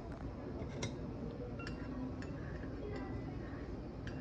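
Metal spoon stirring liquid in a ceramic bowl, making a series of light clinks against the bowl's side, each with a short ring.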